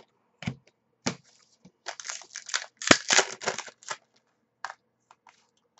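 Trading cards and a foil pack wrapper being handled: scattered short rustles and card clicks, with a denser run of wrapper crinkling and one sharp snap about two to four seconds in.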